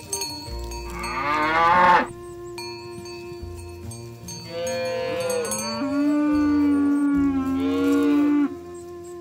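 Cattle mooing twice: a short call rising in pitch that cuts off sharply about two seconds in, then a long, lower moo lasting about four seconds. Steady background music tones run underneath.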